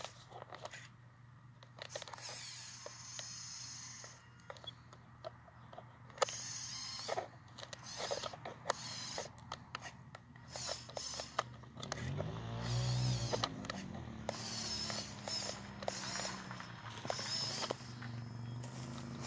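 Modified WPL C24 RC truck's electric motor and transfer case whining in on-and-off bursts as it is driven through snow, with many short creaks and clicks of crunching snow.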